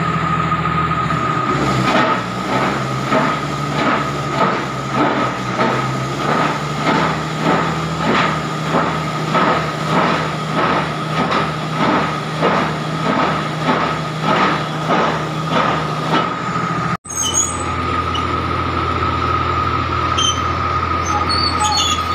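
Casagrande rotary bored-pile drilling rig at work: its diesel engine runs with a steady high whine, over a rhythmic knocking about twice a second as the drilling tool turns into the soil. About 17 seconds in the sound cuts out for an instant, and a drilling rig's engine then runs steadily.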